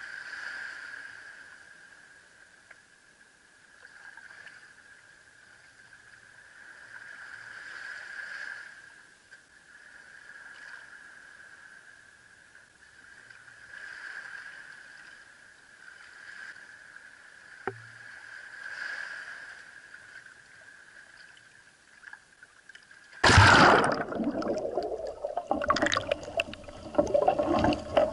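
Small waves washing in and out on a sandy shore, swelling and fading every few seconds, muffled through an action camera's waterproof housing. About 23 seconds in, a sudden loud splash as the camera goes under the surface, followed by underwater bubbling and churning.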